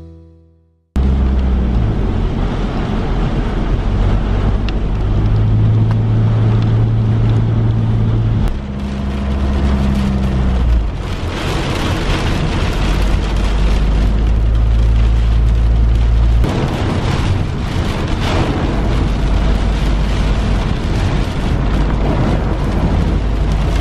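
A car driving on a flooded, rain-soaked road, heard from inside the cabin: a steady low drone from the engine and road, with the hiss of tyres and rain on the car. The drone steps up and down a few times.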